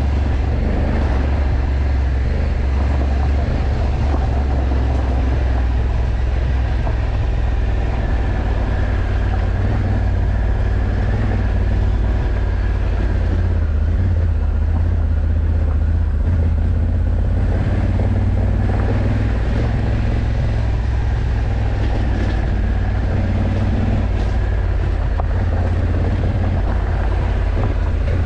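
Honda CRF1100 Africa Twin's parallel-twin engine running at a steady cruise, a constant low drone under road and wind noise.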